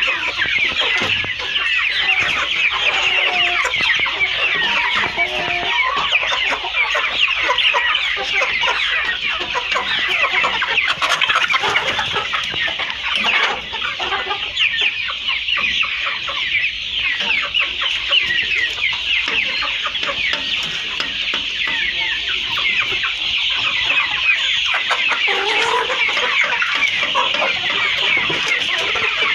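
A flock of kienyeji chickens calling without a break: a dense chorus of short, high, falling peeps overlapping one another, with a few lower clucks mixed in.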